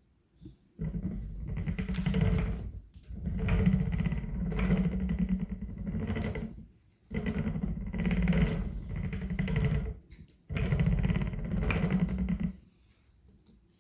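Direct-drive electric skateboard hub motor and wheel turning, four times for a couple of seconds each, with a dense rapid clicking and a low rumble. The motor is stiff and notchy, clicking into position as it turns, which the owner suspects is caused by bad motor bearings.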